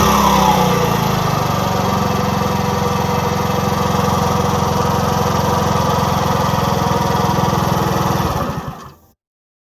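Motor scooter engine settling from a rev into a steady idle, then dying away about eight and a half seconds in.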